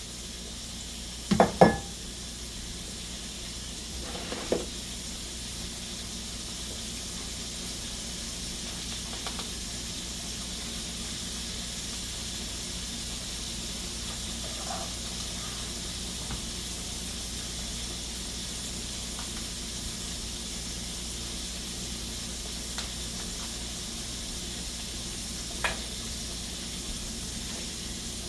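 Pork chops sizzling as they fry in a pan, a steady hiss, with a few knocks of cookware: two sharp ones about a second and a half in and fainter ones later.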